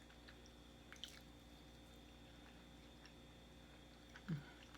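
Near silence with a few faint wet mouth clicks from chewing food, and a short hummed "mm" near the end.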